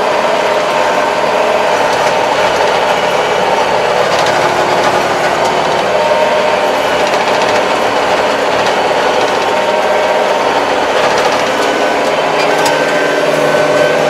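Kubota 75-horsepower tractor running steadily under load while its rotary tiller works the soil, heard from inside the cab: a constant drone with a steady whine.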